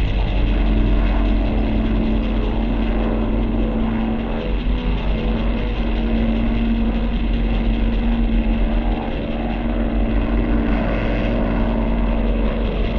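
Cartoon sound effect of large laboratory machinery running: a steady, loud mechanical drone with a strong hum and a low rumble beneath it.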